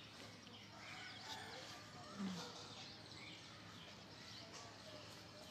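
Faint chirping of birds in the background, many short rapid calls, with a brief low murmur of a voice about two seconds in.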